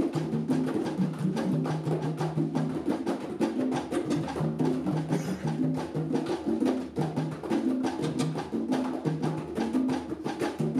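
Congas and other hand drums played in a fast, busy rhythm, with low pitched notes moving in steps underneath.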